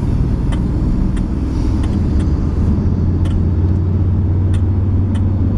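Steady low road rumble heard inside a moving car's cabin, with a few faint clicks scattered through it.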